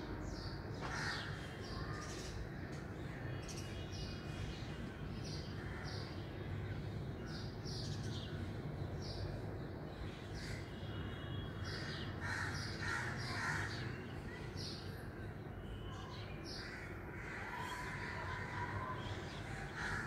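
Several birds calling: many short, high chirps repeat throughout, with harsh calls about a second in and again in a cluster from about twelve to nineteen seconds, over a steady low rumble.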